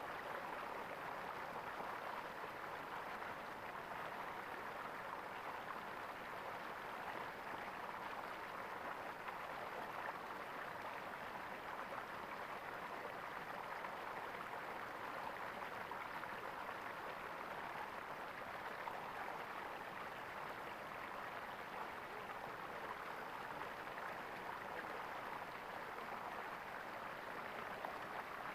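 Water running and gurgling in a small stream, a steady even rush without pause.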